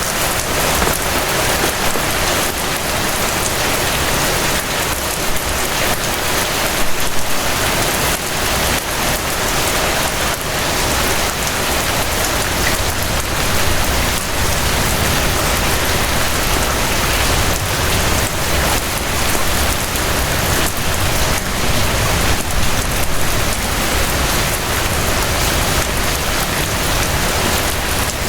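Steady rain falling, a dense hiss flecked with many individual drop impacts, with a low rumble underneath that grows heavier from about eleven seconds in.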